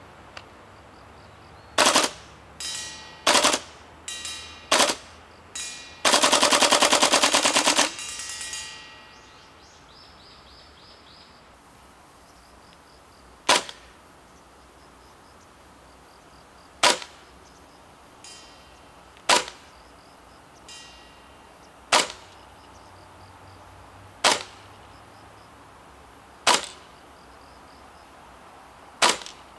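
Tokyo Marui CQBR Block 1 gas blowback airsoft rifle firing: a few single shots, a full-auto burst of about two seconds, then single shots every two to three seconds. Some shots are followed by a metallic ping as BBs strike the steel plate target.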